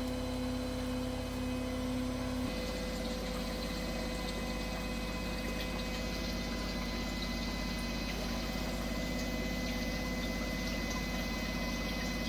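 Steady hum of a running aquarium filter pump with moving water. Its pitched hum changes abruptly about two and a half seconds in, then runs on evenly.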